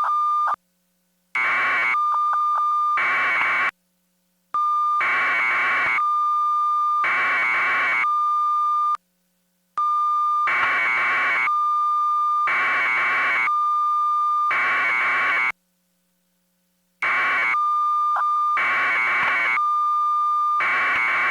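Electronic signal noise: a steady high beep-like tone, broken about every second and a half by louder bursts of buzzing, with the sound cutting out completely three times.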